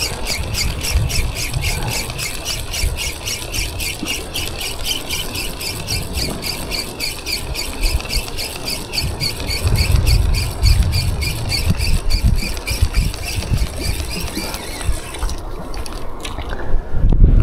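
Fishing reel being cranked steadily to retrieve a lure: a rhythmic high squeak at about six a second that stops suddenly about fifteen seconds in. Wind and water rumble underneath, swelling near the end.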